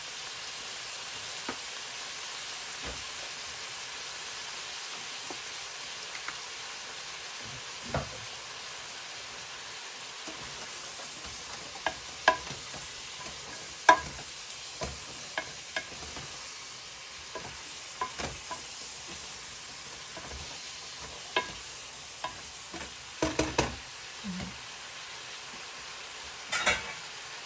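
Chop suey stir-frying in a pan with a steady sizzle. A spatula clicks and scrapes against the pan at irregular moments as it is stirred, more often in the second half.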